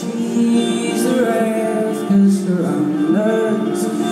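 Live solo performance: a singer accompanying himself on guitar, the voice gliding over steady guitar chords.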